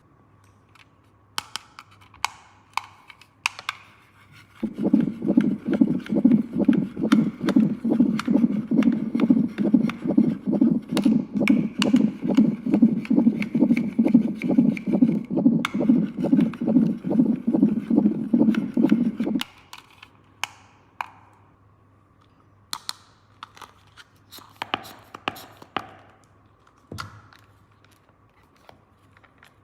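Hands handling plastic toy pieces, with scattered light clicks and taps. About five seconds in, a rapid, repeated scraping starts and runs for about fifteen seconds before stopping abruptly.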